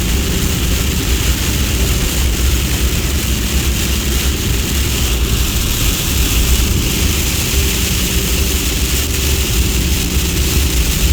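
Driving on a highway in a hailstorm, heard inside the truck's cab: a steady low rumble of engine and road noise under an even hiss of hail and rain striking the vehicle.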